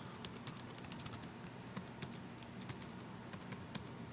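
Typing a password on a computer keyboard: a quick, irregular run of key clicks, with one sharper key press at the end.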